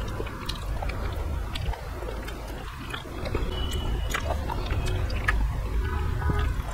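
Close-miked chewing of a mouthful of rice and vegetable curry, with scattered small clicks.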